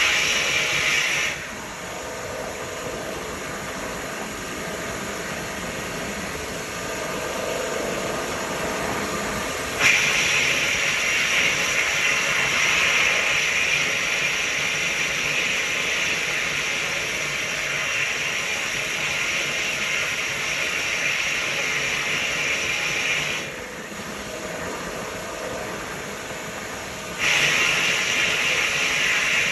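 Vapor hone blast gun hissing as it sprays water-and-abrasive slurry on a carburetor, over the cabinet's steady running noise. The hiss cuts off about a second in, comes back about ten seconds in for roughly fourteen seconds, stops, and starts again near the end.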